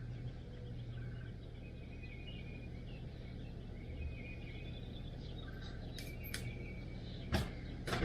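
European starling nestlings giving faint, repeated high begging chirps over a steady low hum. A few sharp knocks come about six and seven seconds in.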